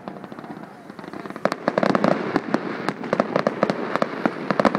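Fireworks going off: faint crackling, then from about a second and a half in a dense, rapid run of sharp bangs and crackles.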